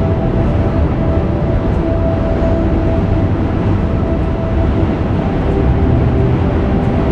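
Dark ambient background music: a steady low drone with long held notes that shift slowly.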